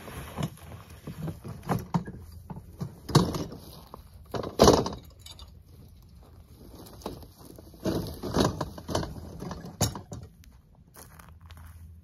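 Tool scraping and knocking into the packed, brick-hard debris of a pack rat nest as it is broken apart: a run of irregular scrapes and thuds, loudest about four and a half seconds in.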